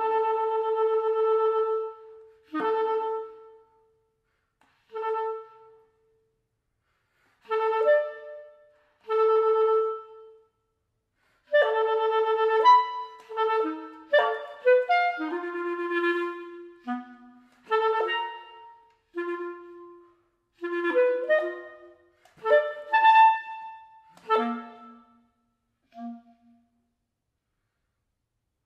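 Solo clarinet playing a piece of separate notes with pauses between them. It opens on a held note, plays single detached notes, moves into a quicker passage of shifting pitches about halfway through, and ends on short low notes.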